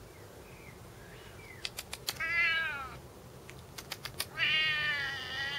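Ginger tabby cat meowing twice: a shorter meow falling in pitch about two seconds in, then a longer, drawn-out meow near the end. A few sharp clicks come just before each meow.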